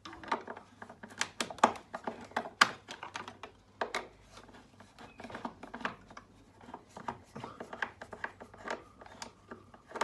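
Hand screwdriver undoing the fixing screws of a small LED floodlight: irregular clicks, scrapes and rattles of the tool against the screws and the fitting's housing. The sharpest clicks come in the first three seconds.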